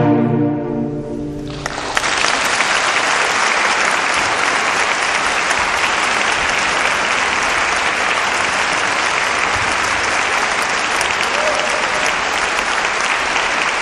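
A cello ensemble's closing chord rings and dies away. About two seconds in, audience applause breaks out and continues steadily.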